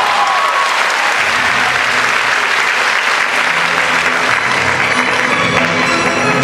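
Theatre audience applauding loudly and steadily over orchestral ballet music, which comes through more clearly near the end.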